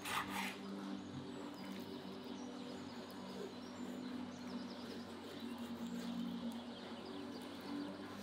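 Birds chirping over soft background music of held, slowly changing notes. Right at the start comes a short crunch as a large kitchen knife cuts through a raw chicken's wing joint on a wooden board.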